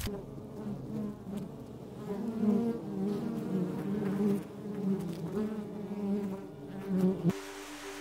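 Honeybees buzzing at a wooden hive entrance: a wavering hum that swells and fades as bees come and go, cutting off suddenly about seven seconds in.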